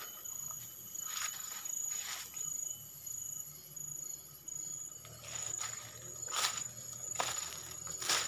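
Forest insects calling with a steady high-pitched trill, with a few short rustles and crunches of someone moving through the undergrowth, several of them in the second half.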